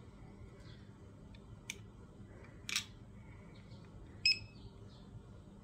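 Plastic jump rope handle clicking as it is handled, with a short snap near the middle, then one short electronic beep from the jump rope's digital counter as it switches on and lights up.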